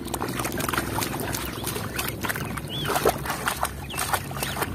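Muddy water splashing and sloshing as a plastic toy crocodile is swished and scrubbed by hand, a quick string of small splashes over a steady low hum.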